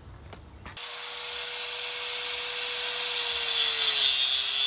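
Angle grinder cutting through a one-wire braided pressure washer hose, starting about a second in: a steady motor whine over a harsh grinding hiss that grows louder, the pitch dipping slightly as the disc bites.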